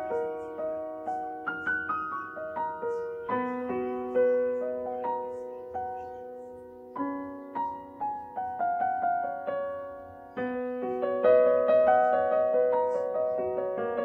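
Background music: a solo piano playing a slow melody of single notes and chords, each struck and left to fade, growing fuller and louder over the last few seconds.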